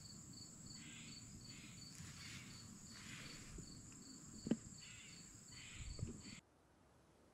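Outdoor insect chorus: a steady high trill with a second chirp pulsing about three times a second. Two short thumps come in the second half, the first the loudest, and the sound cuts off abruptly about six seconds in.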